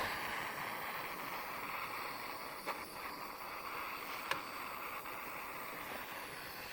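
Handheld butane torch flame hissing steadily while lighting the wood pellets in a pizza oven, with two sharp clicks partway through.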